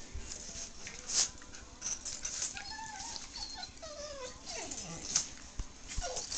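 Two dogs play-wrestling, a black Labrador mouthing a small dog. Short whining squeals come in the middle, then one long falling whine, over scuffling and rustling.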